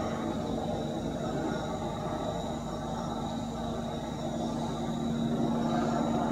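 Police helicopter flying around, heard as a steady rotor and engine drone with a low hum that grows a little louder near the end.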